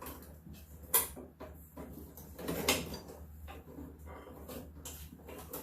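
Mechanical clicks and rattles from a lawn mower's brake and kill cable and lever being worked by hand, with two sharper clicks about a second in and near three seconds; the cable is stretched.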